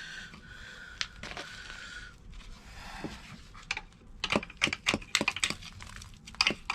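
Small metal parts and tools being handled, clinking and clicking: a run of sharp, irregular clicks through the second half.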